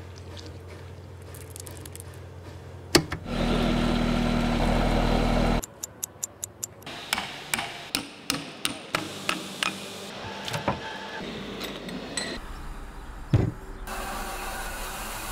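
A montage of workshop sounds from casting a terrazzo sink: a sharp bang, a couple of seconds of loud steady machine noise, then a quartz wall clock ticking quickly, about three ticks a second. Scattered knocks and a heavy thud follow as the cast slab is handled, and near the end a steady grinding noise of a polisher working the terrazzo surface begins.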